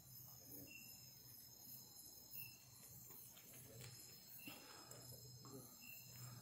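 Faint night insect chorus of crickets: a steady high-pitched trill, with a short chirp repeating about every second and a half.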